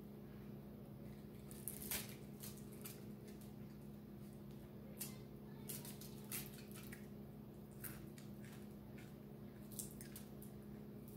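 Soft wet smacks and clicks of eating by hand, as rice and fried fish are chewed and picked apart, scattered irregularly with the strongest about two seconds in. A steady low hum runs underneath.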